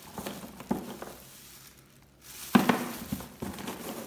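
Crunching and cracking of a nut being bitten open and chewed, in irregular clicks, with a louder crack about two and a half seconds in.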